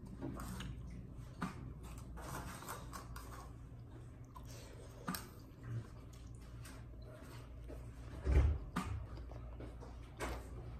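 Eating sounds: chewing, with scattered small clicks and taps of handling food and dishes, and one dull thump about eight seconds in.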